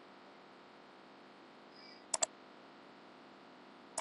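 Computer mouse clicking: two quick clicks close together about halfway through and two more at the very end, over a faint steady hiss.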